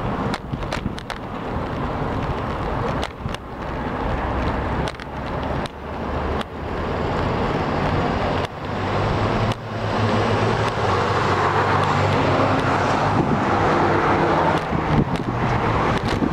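Road traffic going by on a multi-lane street, with a steady engine hum that grows louder in the second half as a vehicle passes close. Short knocks scattered through it.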